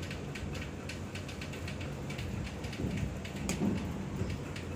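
Steady rain falling, a fine crackling patter over a low steady hum.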